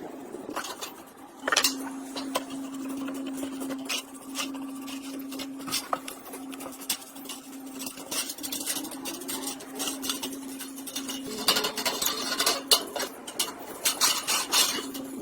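Irregular metallic clinking, tapping and scraping of tools and parts being worked by hand, with a denser flurry of clinks near the end. A steady low hum runs underneath and drops out about three quarters of the way through.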